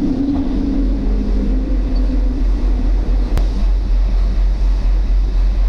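An automatic car wash running over a car, heard from inside the cabin: a steady, pulsing low rumble under rushing water spray, with one faint click about midway.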